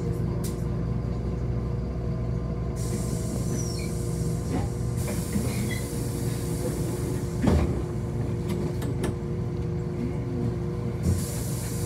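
City bus running, heard from inside the passenger cabin: a steady low rumble with a steady whine over it, and a few short knocks and rattles, the loudest about two-thirds of the way through.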